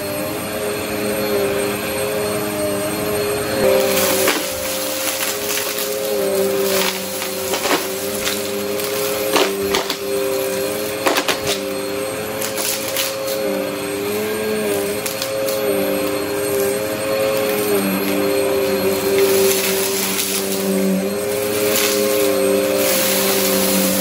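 Vacmaster upright vacuum cleaner running over carpet, its motor a steady hum whose pitch wavers slightly now and then. Scattered sharp crackles come through as small beads and debris are sucked up.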